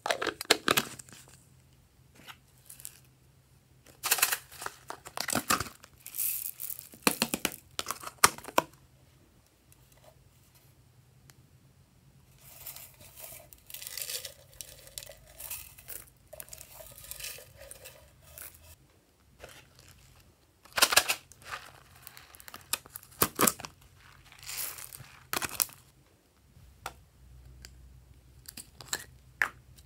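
Hands pulling slime out of small plastic jars and stretching it: sticky crackling and tearing in clusters of sharp bursts, with a quieter stretch of squelching in the middle.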